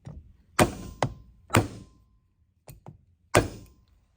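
Hammer blows driving a wooden block against a bent aluminum plate to straighten it: four hard, sharp knocks with a few lighter taps between, and a faint ring lingering after some of them.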